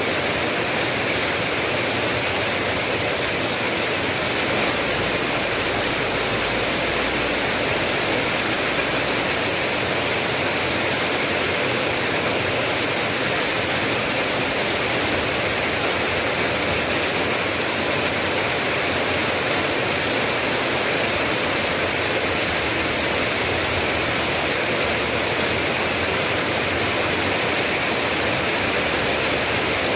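Steady rain falling: a continuous, even hiss that does not let up.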